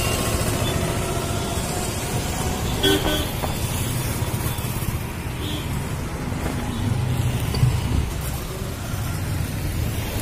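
Road traffic running on and below a bridge, a steady low rumble of passing cars and motorbikes, with a short vehicle horn toot about three seconds in.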